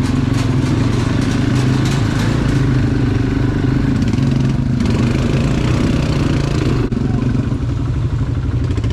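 ATV (quad bike) engine running steadily while being ridden, a loud, even engine drone.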